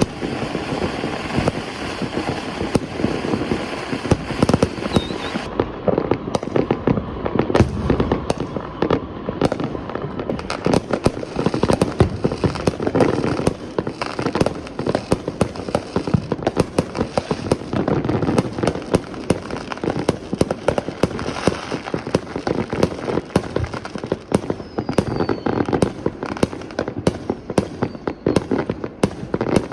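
Dense barrage of many fireworks going off at once: a continuous crackle of firecrackers mixed with deeper booms of aerial shells, with sharp bangs every fraction of a second and no let-up.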